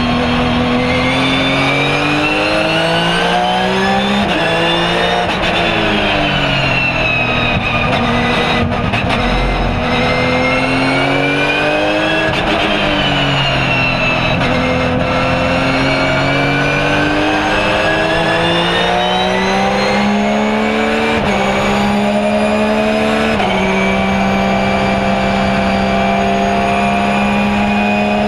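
Porsche 997 GT3 R race car's flat-six engine at full racing load, heard from inside the cockpit: revs climb and fall with the gear changes, dropping sharply twice under braking and picking up again, then stepping up through gears and holding a steady high note near the end.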